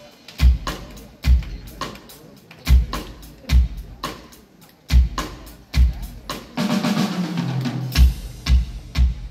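Drum kit played live, with bass drum hits roughly once a second under sharp snare and cymbal strokes. Past the middle, low bass notes stepping downward join and the playing fills out.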